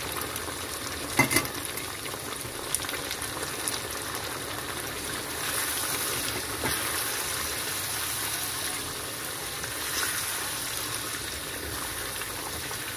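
Tomato-and-pepper sauce sizzling steadily as it fries in a pan and is stirred, with two sharp knocks about a second in.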